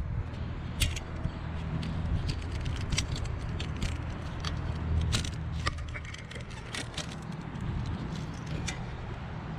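Irregular plastic-and-metal clicks and light scraping of a windshield wiper blade being unclipped from its arm and handled, over a steady low hum.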